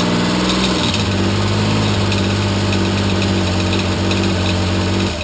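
Triumph T160 Trident three-cylinder engine running steadily just after starting, its pitch settling about a second in, with a fast, faint ticking over the exhaust note. The owner traces a noise from the timing cover to contact with the ignition rotor, finally blaming a timing pointer left in place.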